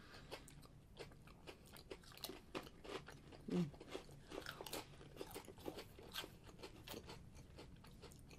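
Two people faintly crunching and chewing Pringles stacked potato crisps, a steady run of small crisp crackles as the chips are bitten and broken up.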